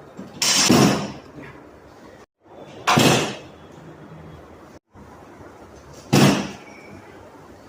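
Three sharp, loud thuds about three seconds apart, each dying away quickly: chiropractic adjustment thrusts landing on the patient on the treatment table.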